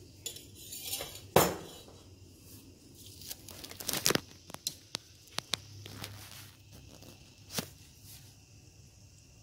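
Scattered sharp clicks and knocks, the loudest a single knock about a second and a half in and a cluster around four seconds, over a low steady hum.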